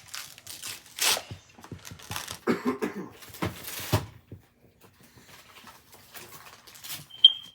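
Gift wrapping paper being torn and rustled in several quick bursts through the first four seconds, then quieter handling of the paper.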